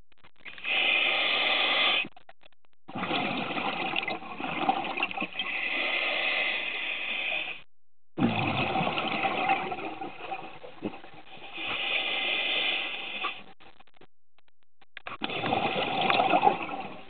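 Scuba regulator exhaust bubbles from the diver's exhalations, heard through the camera housing as four gushing rushes of bubbles, one to five seconds long, with short quiet gaps between breaths.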